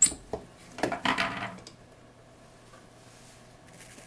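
A utensil clicks sharply against the blender jar, then scrapes for about a second as freshly ground wheat flour is scooped out.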